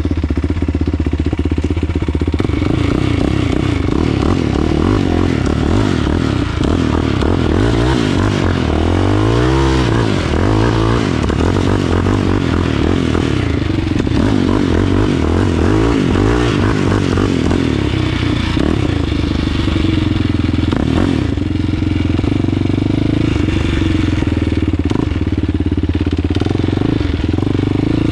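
Tuned Yamaha Raptor sport quad's single-cylinder four-stroke engine revving hard and dropping back again and again as it drifts over loose dirt.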